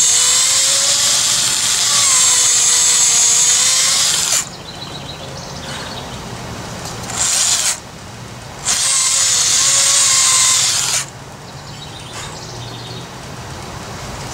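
Electric hand drill boring holes into the old wooden handle wedged in a sledgehammer head's eye, drilling out the wood to free it. Its motor whines loudly in three runs: a long one of about four seconds, a short burst about seven seconds in, and another of about two seconds starting near nine seconds, the pitch wavering as the bit loads in the wood.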